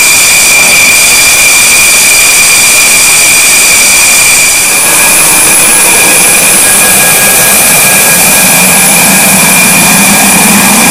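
Twin Snecma M88 turbofans of a Dassault Rafale running at low power on the ground: a loud, steady high-pitched whine over a rushing hiss. The whine shifts about five seconds in, and a lower hum builds in the second half.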